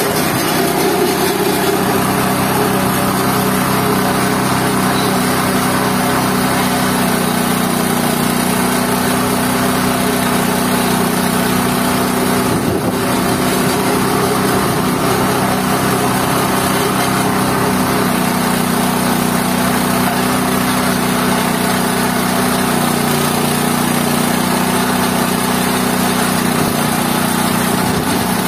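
GT-14 organic-waste pulper machine running steadily under power, grinding green plant waste into a pulp, with a constant engine-like hum.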